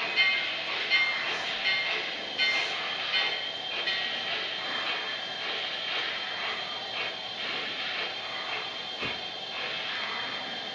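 Sn3 scale model steam locomotive running with a string of log cars: a regular beat of chuffs, a little more than one a second, over a steady hiss. The strongest strikes come in the first few seconds.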